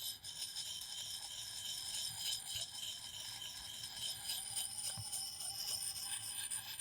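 Fine-grit side of a wet axe-sharpening stone rubbed in small circles along a steel axe blade, making a steady, faint scraping hiss while the edge is polished.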